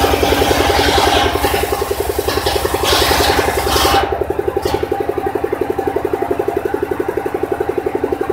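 Engine-driven circular saw bench: the engine runs with a steady pulsing beat while the blade rips through a wooden plank, a hissing cutting noise that stops about four seconds in. After that the engine and the blade run on without cutting.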